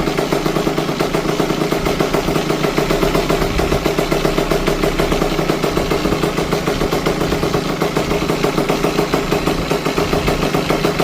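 Rebuilt KTM dirt bike engine idling steadily, with an even, rapid firing pulse.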